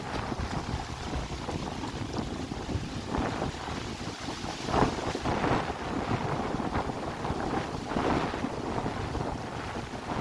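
Wind buffeting the microphone outdoors: a steady rumbling rush that swells in irregular gusts, strongest about five seconds in and again near eight seconds.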